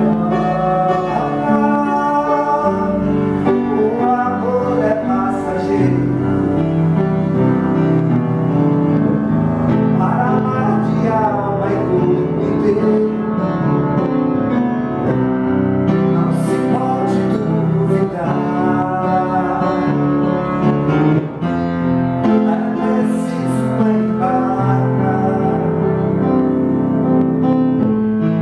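A song performed on piano with a singing voice.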